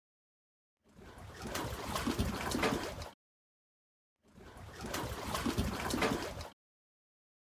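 Two short snippets of trickling, lapping water, each about two seconds long, starting and stopping abruptly with dead silence between them, as the short sound clips of Live Photos do.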